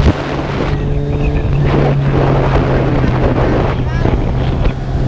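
Kawasaki Z1000's inline-four engine running at a steady highway cruise under heavy wind buffeting on the rider's microphone, its hum dropping slightly in pitch about a second and a half in.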